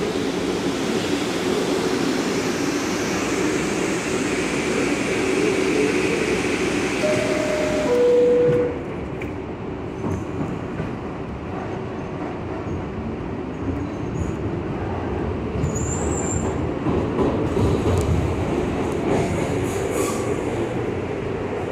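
NYC subway R62A car standing at the platform with its doors open, then a two-note falling door chime about seven seconds in, followed by the doors closing. The train then pulls out, and its traction motors and wheels rumble as it gathers speed.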